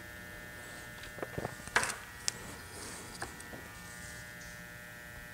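A faint, steady electrical buzz made of several even tones, with a few light clicks and taps about one to two and a half seconds in as small paint cups are picked up and handled.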